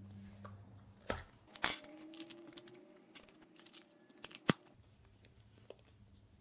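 Small plastic toy figurine and its parts being handled: a few sharp clicks and light rattles, the loudest about four and a half seconds in, with faint crinkling between.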